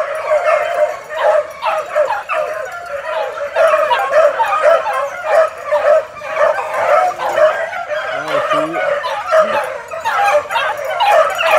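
A pack of four-month-old puppies giving voice on a rabbit's trail: yelping and baying over one another without a break as they run the rabbit.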